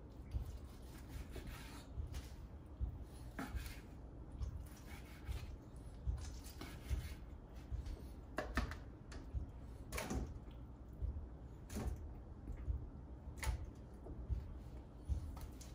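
Long knife cutting smoked brisket into cubes on a wooden cutting board, with a knock each time the blade meets the board, every second or two.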